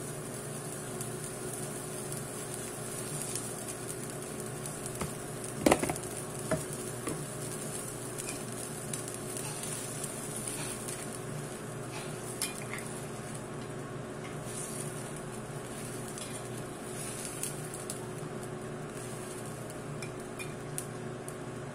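Food sizzling in a cooking pan, a steady frying hiss, with a loud clank of a utensil or pot about six seconds in and a few lighter clinks later.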